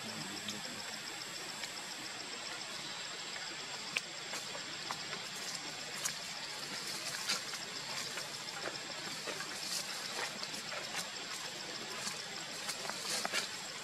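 Steady forest ambience: an even hiss with a constant high-pitched whine and a faint quick pulsing above it, with scattered small clicks and ticks that come more often in the second half.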